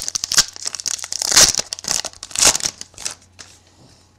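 Plastic wrapper of a trading-card pack crinkling and tearing as it is ripped open by hand: a quick run of sharp rustles that stops about three seconds in.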